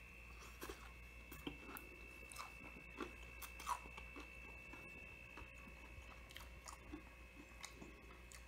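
Faint chewing of a crisp breaded, fried calamari ring: soft crunches and small clicks scattered through, with no steady rhythm.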